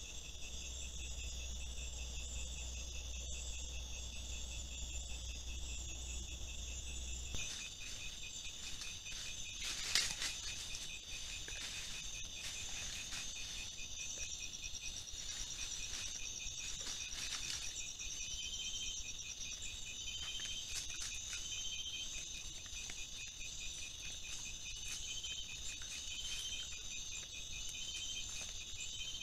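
Night chorus of forest insects such as crickets and katydids: several steady high-pitched trills, one of them pulsing in short repeated bursts. Scattered short ticks are heard, with one sharp click about ten seconds in.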